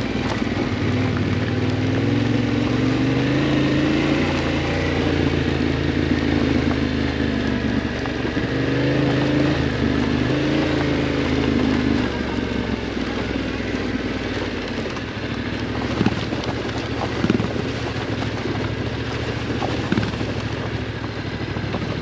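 Yamaha Ténéré 700's parallel-twin engine, breathing through a Yoshimura RS-12 slip-on exhaust, pulling under changing throttle on a gravel trail. After about twelve seconds it eases off to a lower, quieter run. A few sharp knocks come in the second half.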